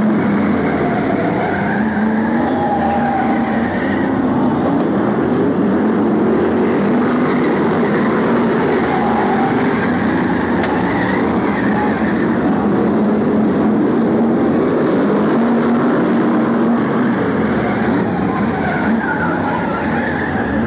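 Several BriSCA F1 stock cars' V8 engines running together as a steady loud din, their pitch rising and falling as the cars go round.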